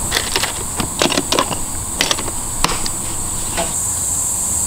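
Scattered light clicks and taps of a spoon and stainless steel bowls being handled at a table, over a steady high-pitched chorus of insects.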